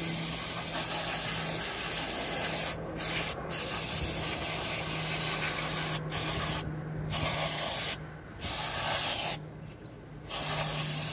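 Aerosol can of brake cleaner spraying onto a drum brake assembly: a loud hiss in long bursts, broken by several short pauses as the nozzle is released and pressed again.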